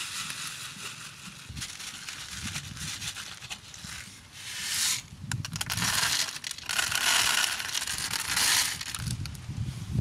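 Dry grain poured from a plastic bottle and scattered by hand onto cardboard, making a hissing, crackling rattle in several spells that is loudest in the second half.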